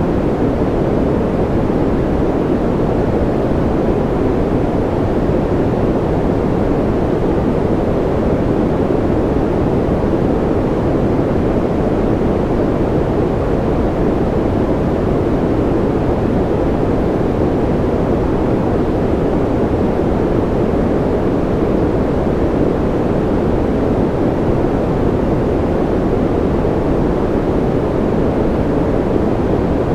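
Steady, unchanging generated noise for sleep or concentration. It is deep and muffled, with little treble.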